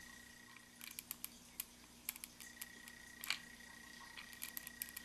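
Faint scattered clicks and taps of a hot glue gun being worked over a battery harness, the sharpest about three seconds in, over a steady thin high whine.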